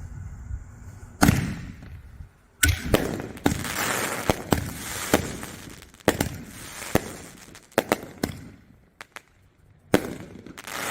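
1.75-inch artillery-shell fireworks going off. There is a loud bang about a second in, then a run of sharp reports with crackling for several seconds, scattered pops, and another loud bang near the end.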